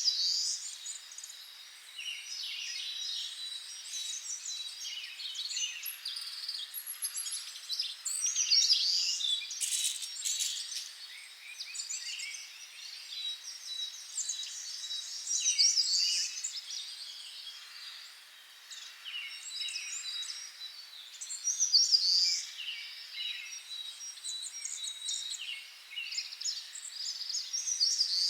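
Birds chirping and calling, many short overlapping chirps throughout, over a thin steady high tone.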